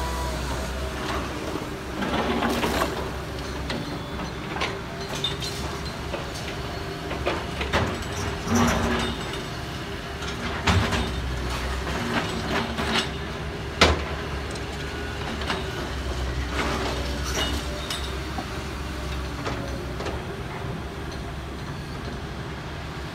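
Excavators' diesel engines running while their buckets scrape through and drop broken concrete rubble, with repeated clanks and knocks of concrete and steel, the sharpest about fourteen seconds in.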